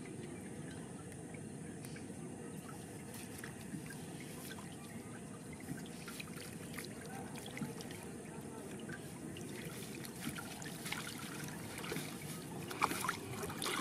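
Water trickling and splashing as a wet fine-mesh fishing net is hauled by hand out of the river over the side of a boat. The splashes and drips come more often and louder near the end.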